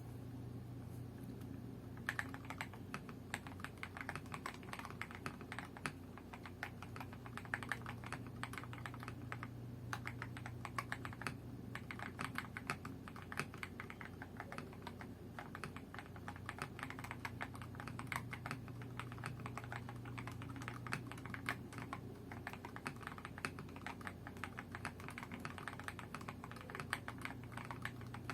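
Mechanical keyboard with KTT Kang White linear switches and PBT XDA-profile keycaps being typed on at a steady pace, an irregular stream of key clacks that starts about two seconds in, over a steady low hum.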